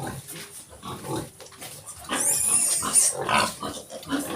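A litter of piglets about three weeks old grunting, with a loud, high-pitched squeal about two seconds in that lasts close to a second.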